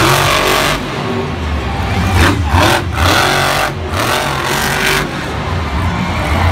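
Monster truck engine revving hard in several short surges as the throttle is blipped on and off, with the truck popping wheelies.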